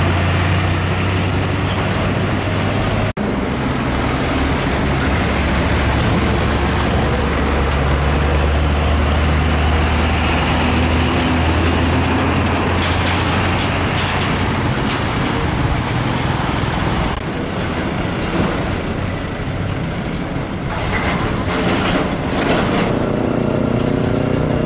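Heavy diesel trucks passing close by: loud engine drone with tyre and road noise, broken by an abrupt cut about three seconds in. Near the end a diesel truck engine climbs in pitch as it accelerates.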